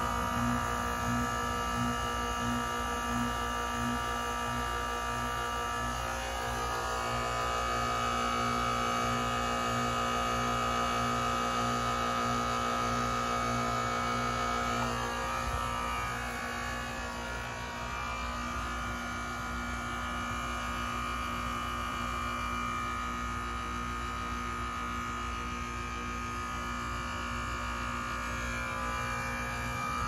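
Goodman GSH13 heat pump's outdoor unit in its defrost cycle: the compressor running with a steady electrical hum and several steady whining tones, which shift a little in pitch about six and fifteen seconds in.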